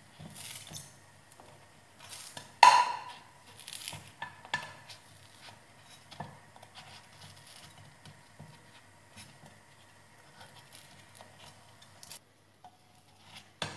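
A wooden stick scraping and tapping in the hollows of a non-stick paniyaram pan as cooked paniyarams are lifted out and set down on a plate: scattered light clicks and knocks, the loudest about two and a half seconds in.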